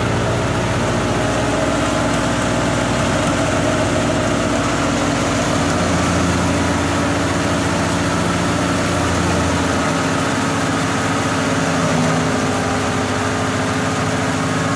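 Doger wheat thresher running steadily while wheat straw is fed into it, giving a loud, even mechanical drone made of several steady humming tones.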